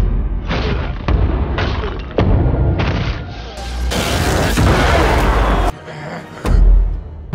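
Action-film sound effects over orchestral score: a run of heavy booms and impacts, about one every half second at first, then a long hissing, crackling rush in the middle and a deep boom near the end.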